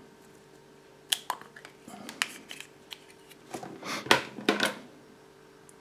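Hands breaking open a Kinder Surprise chocolate egg and handling the yellow plastic toy capsule inside: scattered light clicks and cracks, then a quick cluster of louder plastic knocks about three and a half to four and a half seconds in.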